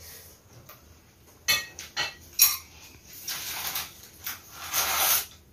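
A few light clicks and knocks, with a soft rustle near the end.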